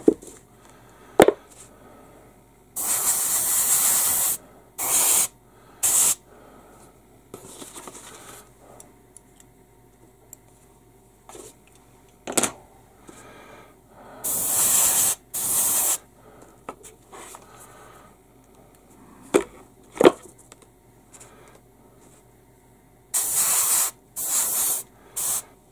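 Airbrush spraying in short hissing bursts, about seven of them, the longest lasting a second or more. Between them come a few light single taps.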